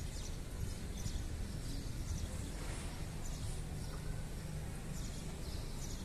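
Outdoor ambience: a steady low rumble, with small birds chirping briefly every second or so.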